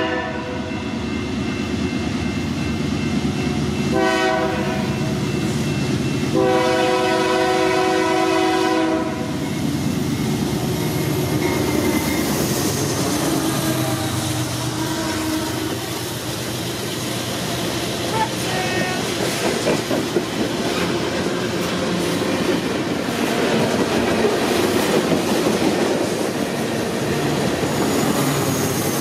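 BNSF freight train's chord horn sounding a short blast about four seconds in and a long one from about six and a half to nine seconds, the end of the long-long-short-long grade-crossing signal. Then the diesel locomotives pass close by, with engine noise and the clatter of wheels over the rails.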